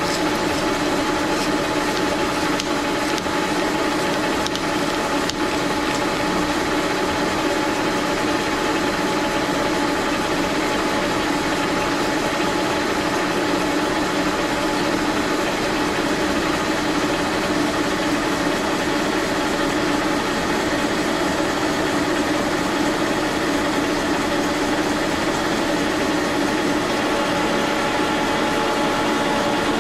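Metalworking machine tool running steadily: a constant drone with a steady whine on top.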